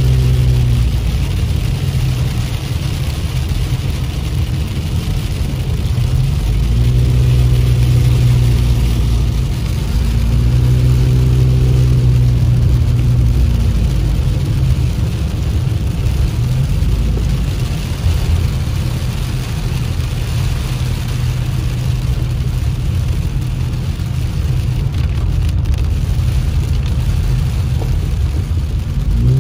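Car engine and tyre noise heard from inside the cabin while driving, with heavy rain and hail hitting the car as a steady hiss. The engine note rises several times as the car accelerates.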